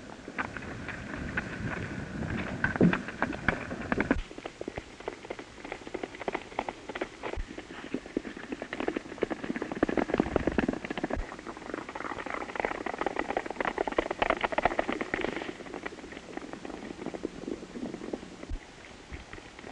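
Horses galloping on dry dirt: a dense run of hoofbeats over the hiss and crackle of an old film soundtrack.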